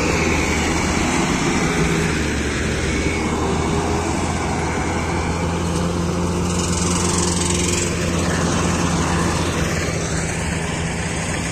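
Diesel engine of a Mahindra tractor running steadily under load, driving a tractor-mounted Balkar combine harvester while it harvests paddy. There is a steady low engine hum with machinery noise over it.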